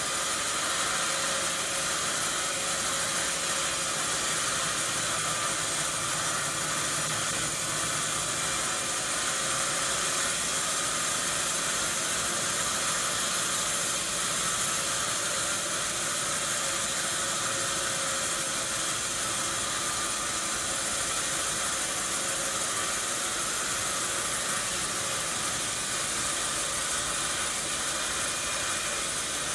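Sawmill machinery running steadily: an even, hissing mechanical noise with a faint steady hum, unchanging throughout.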